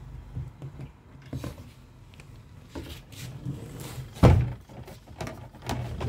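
Scattered clicks and knocks of a screwdriver working on a plastic washing-machine body, with one louder thump about four seconds in.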